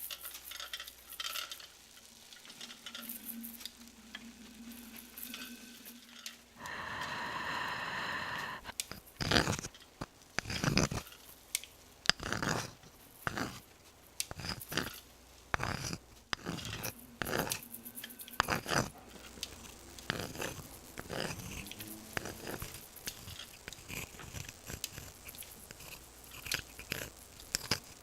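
Foley sound effects: a rushing noise for about two seconds, then a long run of irregular sharp crunches and cracks, as of props being crushed or snapped.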